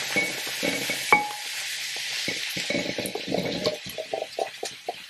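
Drained canned kidney beans sliding out of a tipped can into a slow cooker, then a spatula scraping and tapping the last beans out in a quick run of knocks near the end, over a steady sizzle of onions and garlic frying in a skillet.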